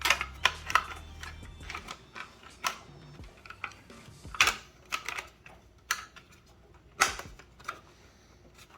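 Irregular clicks and taps of a carbon fiber frame cover being handled and snapped into place against the motorcycle's subframe for a test fit.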